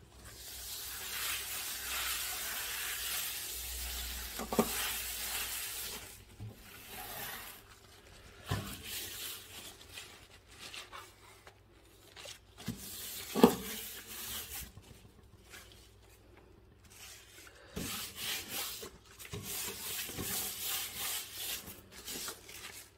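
Textured cleaning wipe rubbing over a dusty table top and clock radio: a dry scrubbing hiss in several long spells, with a few short knocks, the loudest about halfway through.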